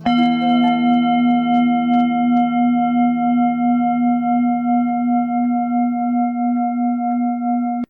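A single struck metal bell tone, of the singing-bowl kind used in meditation music, rings on steadily with a slow pulsing waver in its sound. It is cut off abruptly near the end.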